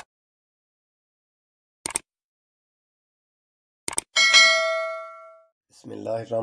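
Animated subscribe-button sound effects: three short mouse clicks about two seconds apart, the last followed by a bright bell ding that fades over about a second and a half. A voice begins near the end.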